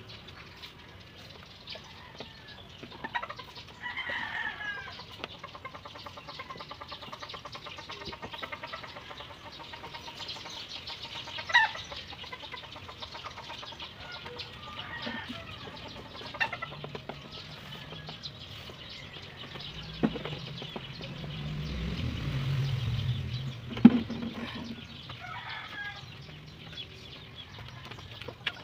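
Chickens clucking and calling on and off, with a few sharp knocks; a low rumble swells and fades in the second half.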